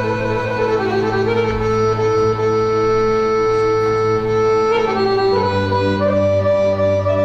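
Bulgarian folk instrumental music: a melody over a steady low drone, holding one long note for a few seconds before moving to new notes about five seconds in.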